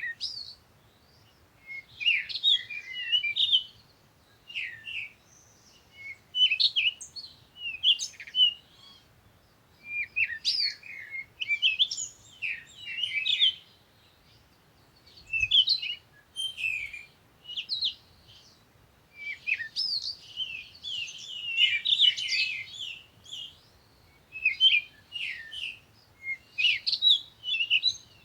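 Songbirds chirping and singing: short phrases of quick, high twittering notes, repeated every couple of seconds with brief pauses between.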